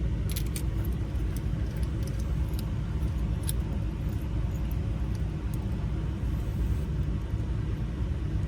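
Small metal ignition-lock parts and keys clicking and tapping now and then as they are handled and fitted, over a steady low rumble.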